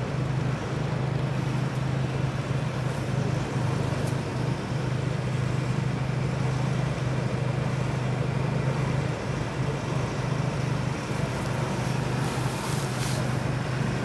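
Massey Ferguson tractor's diesel engine running steadily under load while pulling a plough through stubble, with a few faint high clicks near the end.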